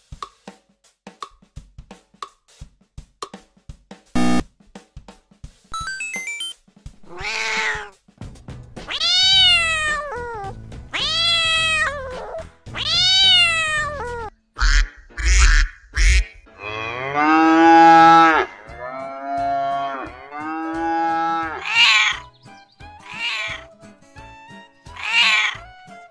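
A quiz countdown's quick ticking for about four seconds and a sharp hit, then a domestic cat meowing over and over. Each meow is drawn out, rising and falling in pitch.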